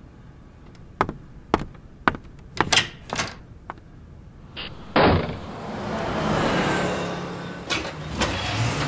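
Footstep sound effects, a few sharp clicks about half a second apart, then a door banging shut about five seconds in. After the bang a vehicle engine runs steadily, growing louder.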